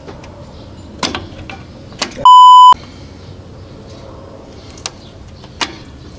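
A single loud, steady beep about half a second long, about two seconds in: a censor bleep dubbed into the soundtrack. A few sharp knocks and clicks come before and after it.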